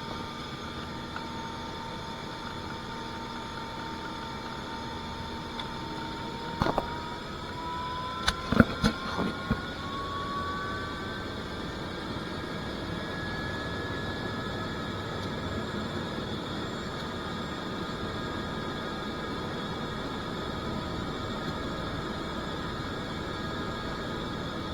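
Helicopter heard from inside the cabin: a steady engine and rotor drone with a whine that rises in pitch between about 6 and 14 seconds in, then holds. A few sharp knocks around 7 and 9 seconds in.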